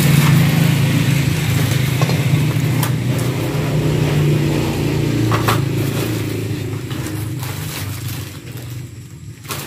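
A steady low engine hum that slowly fades over the last few seconds, with a few short crinkles of plastic packaging being handled.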